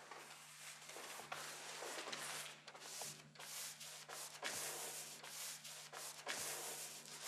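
Paintbrush strokes on a stretched canvas: a run of irregular scratchy swishes over a low steady hum.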